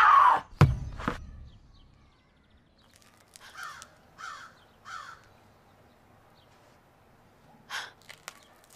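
A woman's loud scream breaks off about half a second in, followed by two sharp knocks. Then comes a quiet stretch holding three faint short calls about two-thirds of a second apart, and a brief noise with a few clicks near the end.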